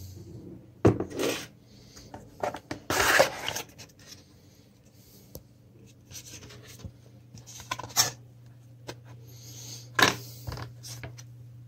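Unboxing handling noise: a display panel and its cardboard box insert handled on a desk, with rubbing and several sharp knocks, the loudest about a second in, around three seconds in and near the end.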